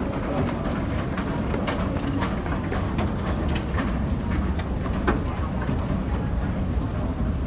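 Steady low rumble of a crowded London Underground escalator running, with scattered light clicks and knocks from the moving steps and the people on them.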